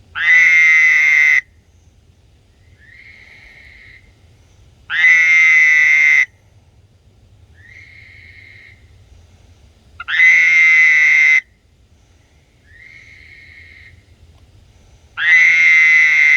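A male frog giving a loud mating call four times, each call a bit over a second long, about every five seconds. Fainter, shorter calls come in between each loud one.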